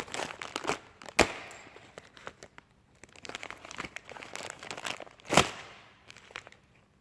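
Straight plain-edged blade of a Swiss Army knife cutting through plastic: a run of crackling, crinkling strokes, with two sharp loud cracks, about a second in and near the end, as the plastic gives.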